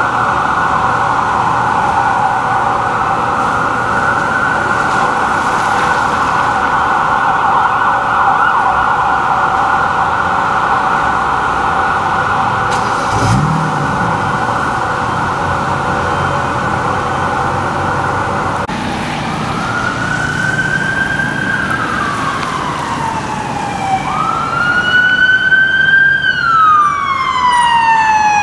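Fire apparatus responding under electronic sirens. A fast-cycling siren sounds for about the first two-thirds, then stops, and a slow wail rises and falls twice.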